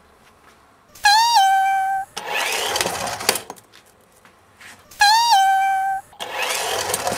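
Edited-in sound effects played twice in the same order: a buzzy electronic beep lasting about a second, with a short upward bend at its start, then about a second of rushing noise with a rising pitch.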